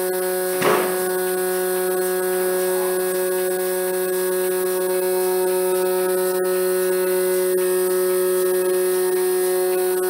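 Portable bucket milking machine's vacuum pump motor running with a steady hum. A short knock sounds just under a second in.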